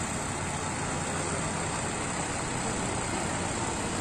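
Walk-behind cultivator's small engine running steadily under load while its furrowing blades work the soil.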